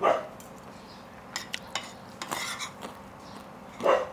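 Eating sounds from a plate of spicy rice noodles: two short loud slurps at the start and about four seconds in, with spoon and fork clicking and scraping on the plate in between.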